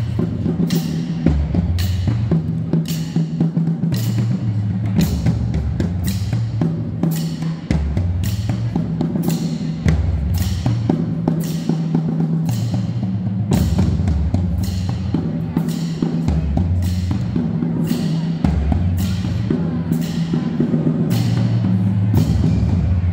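A high school marching drumline playing a marching cadence: snare drums and tenor drums with sharp accented hits about twice a second, over a changing run of pitched notes from the tuned bass drums.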